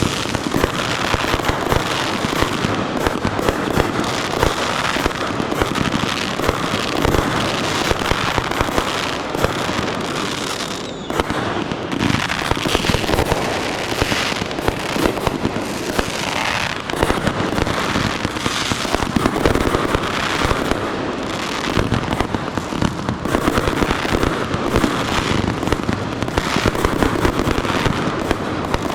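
Fireworks in a finale-style barrage: rapid bangs and crackling overlap with no pause. There is a brief lull about eleven seconds in.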